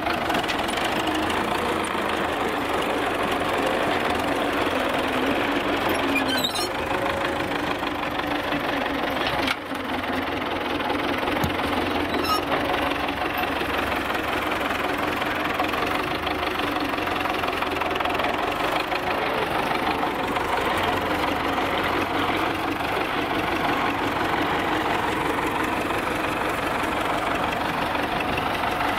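Tractor diesel engine running steadily under load while the front loader bucket pushes and spreads sand along a dirt track.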